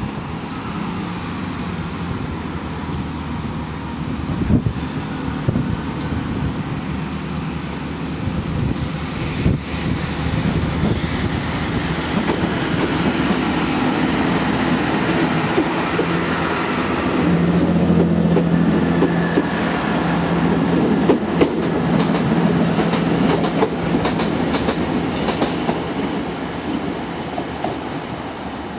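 Chiltern Railways class 165 and 168 diesel multiple units running through a station: their underfloor diesel engines keep up a steady low drone, and the wheels click on the track as a unit passes close by. The sound is loudest a little past the middle.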